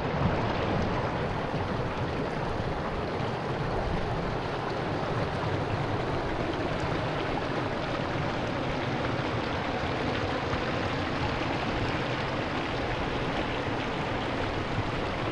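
Rushing water from a mountain stream: a steady, even hiss with no breaks.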